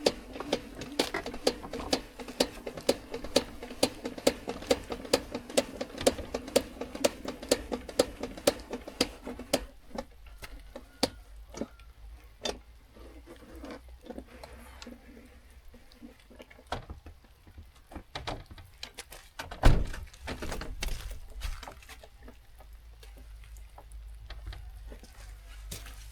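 A small machine hums steadily with an even clicking about three times a second, then stops about ten seconds in. Scattered knocks follow, with one loud thump a few seconds before the end.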